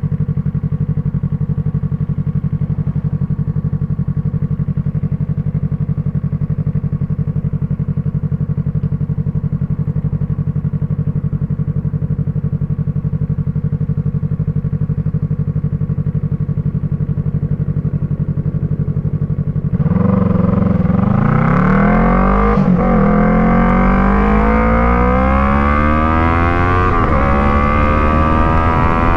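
Yamaha MT-03's parallel-twin engine through an Arashi aftermarket exhaust with its dB killer fitted, idling steadily, then revving with the pitch rising and falling repeatedly from about two-thirds of the way in.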